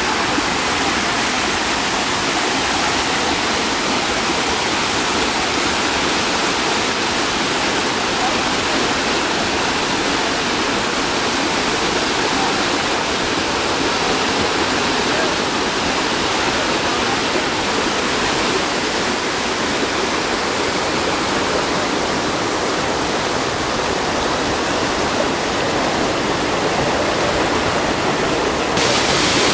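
Small waterfall pouring down with a loud, steady rush of water.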